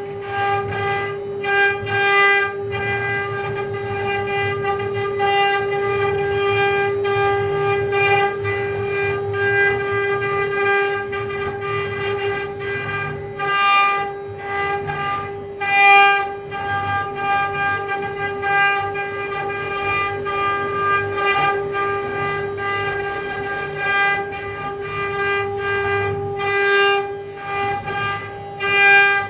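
Mini CNC wood-carving router running: its spindle gives a steady high whine, over a rumbling noise from the bit cutting wood, with brief louder surges every few seconds.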